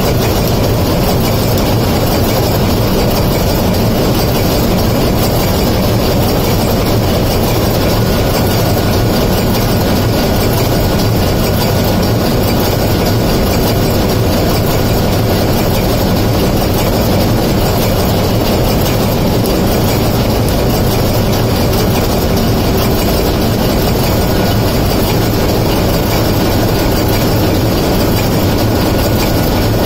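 Loud, steady engine-room machinery noise at the cylinder units of a running MAN B&W ME-type two-stroke marine diesel main engine, an even din with a faint steady hum through it.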